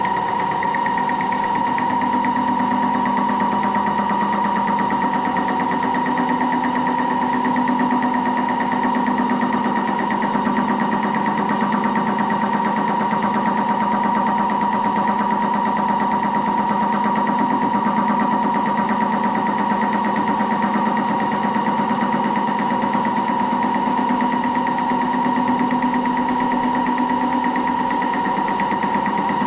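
Moore jig borer running, its spindle turning a boring head that cuts a 5/8-inch radius into the part. It is a steady machine hum with a constant high whine.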